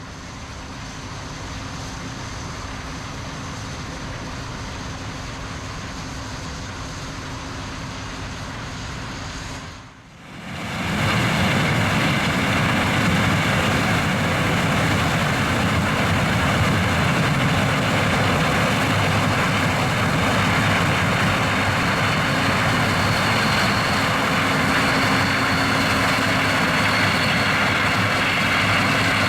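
Heavy corn-harvest machinery, a combine and a big tractor, running steadily. About ten seconds in it cuts out briefly, then comes back louder, with a steady mechanical whine over the engine.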